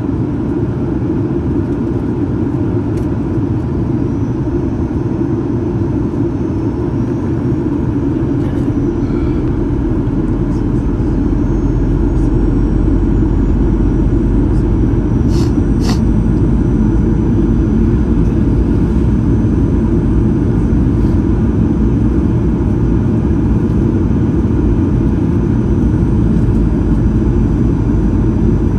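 Boeing 737-800 cabin noise in flight: the steady low rumble of the CFM56 engines and airflow past the fuselage, growing a little louder about twelve seconds in. Two sharp clicks come about halfway through.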